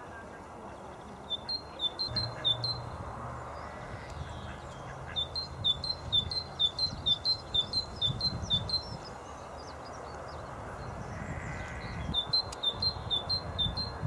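Great tit singing its repeated two-note song, a higher note and a lower one alternating about four times a second. It sings in three phrases: a short one near the start, a longer one in the middle and another near the end.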